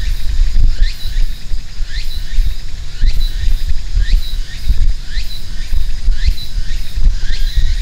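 Outdoor evening ambience: a chirp that rises and ends in a short high note repeats about once a second over a fast, faint, high pulsing, and a louder low rumble runs beneath.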